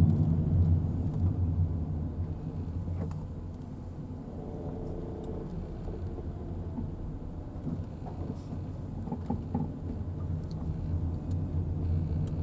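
Low rumble of a passing or running road vehicle, loudest at the start, easing off, then building again near the end.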